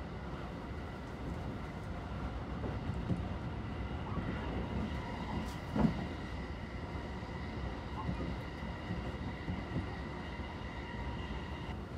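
A moving train heard from inside the carriage: the steady rumble of the wheels on the track with a faint high steady tone over it, and one sharp knock about halfway through.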